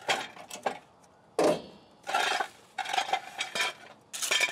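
Metal clanks and rattles from a floor jack being pumped and a steel jack stand being worked loose from under the truck. A run of short clatters, the loudest about a second and a half in, with a brief ring after it.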